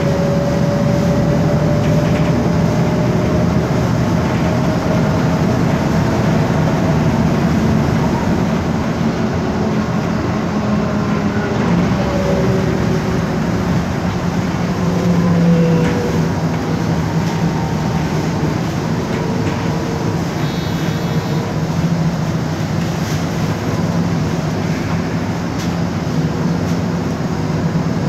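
MAN Lion's Classic city bus heard from inside the passenger cabin while driving: its MAN E2876 CNG engine runs with a steady low drone, and the ZF Ecomat 6HP504C automatic gearbox adds a thin whine that drifts slowly in pitch as the speed changes.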